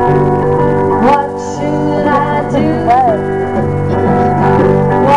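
Live band music: electric guitar notes that bend and slide over sustained chords, with occasional hand-drum hits.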